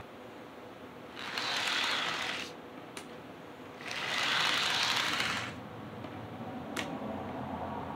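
Model diesel locomotive running around the layout track: the small electric motor and wheels on the rails make a whirring rumble that swells twice, for about a second and a half each time, as it comes nearer, with a couple of sharp clicks in between. It has just been cleaned and lubricated.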